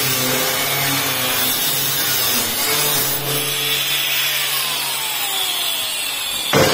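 Angle grinder with a thin cutting disc cutting through stainless steel sheet. About halfway through it is lifted off and winds down with a falling whine. A sudden loud knock comes near the end.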